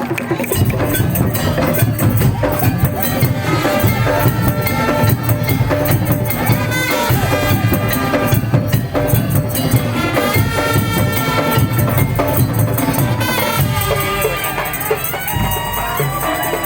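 Loud traditional percussion music with a steady beat and a melody line over it.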